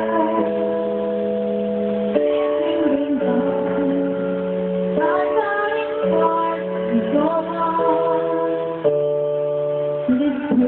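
Karaoke backing music of held chords that change every second or two, with a girl's singing voice through a microphone gliding over it at times.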